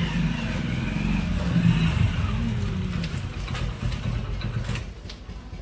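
A motorcycle engine running as the rider pulls up at low speed, then stopping about five seconds in. A few light clicks follow near the end.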